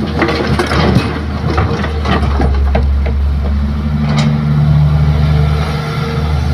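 Diesel engine of a Kobelco hydraulic excavator running under load, with loose soil and rocks clattering into the steel bed of a dump truck for the first couple of seconds as the bucket is emptied. The engine note grows louder and steadier about halfway through as the empty boom swings back out.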